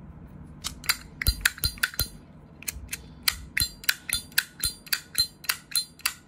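Zippo lighter being worked by hand: a quick series of sharp metallic clicks and clinks, a few at first, then about three a second. The seller judges the lighter's flint wheel a bit weak.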